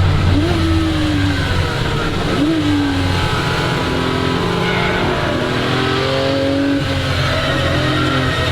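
1961 Ferrari 250 GT SWB's Colombo V12 engine driven on track: two quick throttle blips with the revs falling away after each, as on downshifts under braking. The revs then climb steadily, dropping once at a gear change near the end and rising again.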